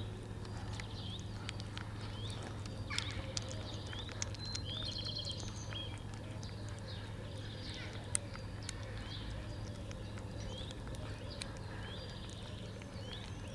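Kittens eating wet cat-food pâté from a bowl: small wet chewing, lapping and smacking clicks. Short chirps, which may be small birds, come repeatedly throughout, and a steady low hum runs underneath.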